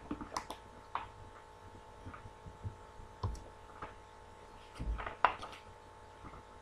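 Faint scattered clicks and a few soft low thumps, the clearest about three and five seconds in, over a steady electrical hum.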